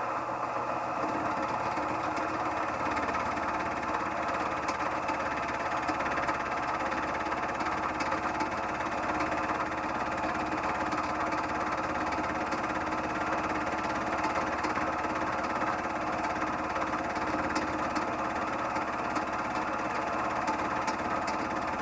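Harbor Freight mill-drill-lathe combination machine running a fly cutter across a workpiece on a light surfacing pass: a steady motor and drive hum with fixed tones, joined about a second in by a fast low rattle as the cutter bites the metal.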